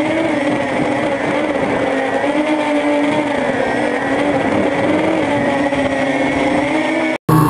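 Quadcopter's brushless motors and propellers humming steadily as heard from the onboard camera, the pitch wavering gently as the throttle shifts. The sound cuts out abruptly for a moment near the end.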